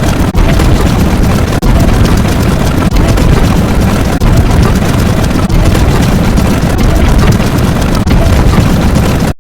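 Very loud, heavily distorted sound effect, a dense roar-like noise heavy in the bass, broken by brief dips about every second and a quarter, then cutting off suddenly into silence at the end.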